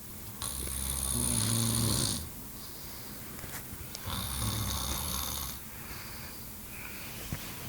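Snoring: two long snores about three and a half seconds apart, each a low rumble with a hiss above it.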